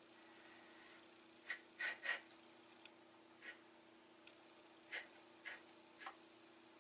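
Small, sharp clicks and taps of metal parts being handled and fitted at an outboard lower unit's driveshaft and water pump base, about seven in all, in a cluster near the start and scattered later, over a faint steady hum.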